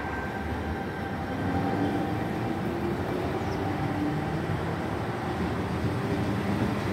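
Tangara T set double-deck electric train gathering speed along the platform. Its traction motors whine in several tones that slowly climb in pitch over a steady rumble of wheels on the rails, growing a little louder after about a second and a half.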